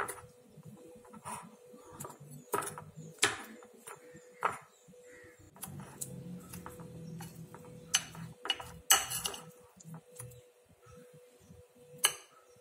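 Metal fork clinking and scraping against a ceramic plate while stirring and mashing a stiff, crumbly cookie-dough mixture, with irregular sharp clinks, the loudest about three seconds in, around nine seconds and near the end. A faint steady hum runs underneath.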